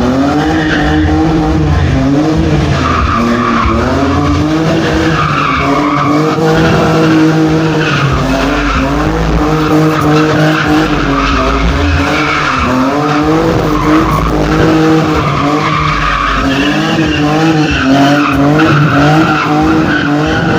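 A car being drifted, its engine revving up and dropping back over and over while the tyres squeal.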